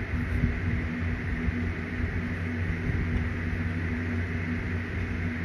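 A steady machine hum with a soft hiss, running unchanged throughout.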